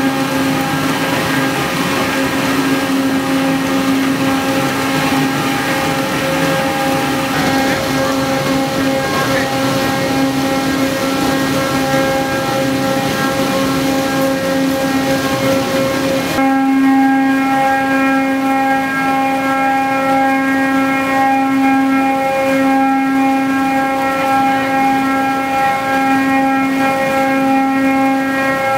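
Loud, steady sugar mill machinery: conveyors and elevators carrying shredded sugar cane, with a constant motor hum and its overtones under a hiss. About two-thirds of the way through, the hiss drops and the hum stands out more.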